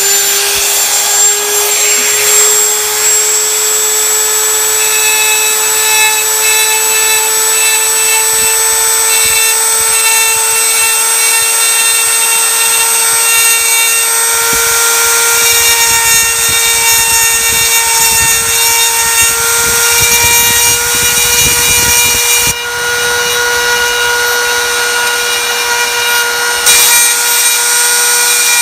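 Dremel rotary tool with a conical abrasive stone running at high speed, a steady high-pitched whine, grinding away the acrylic of an orthodontic appliance.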